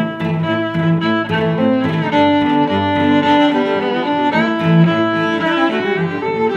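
Instrumental intro theme music, held melodic notes changing every half second or so.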